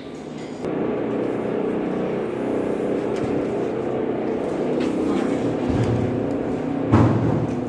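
A steady machine hum with a buzzy edge starts about half a second in, and a single knock comes near the end.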